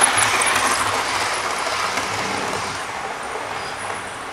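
OO gauge model train running past close by on the track, its wheels and motor making a steady rumbling rattle that fades as it moves away.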